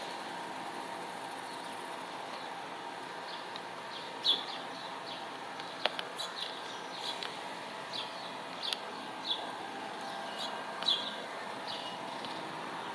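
Short, sharp bird chirps repeated at irregular intervals from about three seconds in, over a steady background hum.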